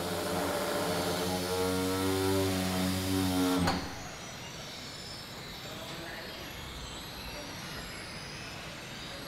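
Car assembly plant machinery: a steady, pitched droning hum that cuts off abruptly about three and a half seconds in, leaving quieter, even factory-hall noise.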